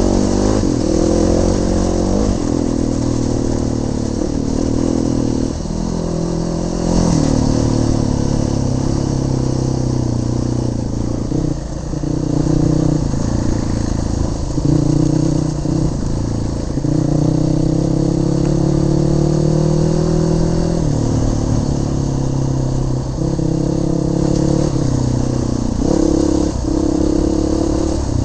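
Trail motorcycle engine under way off-road, the revs climbing and dropping again and again with throttle and gear changes. It runs over a steady low rumble of wind and riding noise on the bike-mounted microphone.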